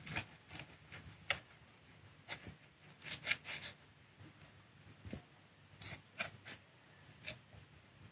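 Faint, scattered clicks and crisp scrapes of a utensil cutting into a panko-crusted Scotch egg, a few single ticks with a quick cluster about three seconds in.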